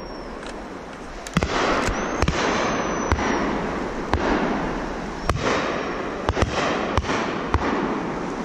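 Shotguns firing on a driven pheasant shoot: a dozen or so sharp reports at irregular intervals, some nearer and louder, others fainter and farther off.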